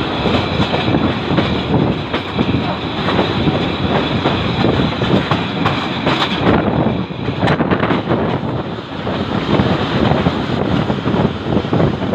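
Cairo–Menouf train running past close by, its wheels clattering over the rail joints in a continuous rumble.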